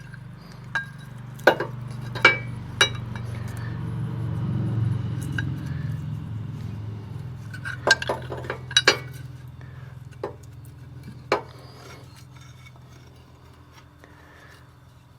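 Metal tools and blade hardware clinking and knocking against the steel mower deck in sharp, scattered strikes while a mower blade is worked on by hand. A low hum underneath swells over the first five seconds and then slowly fades.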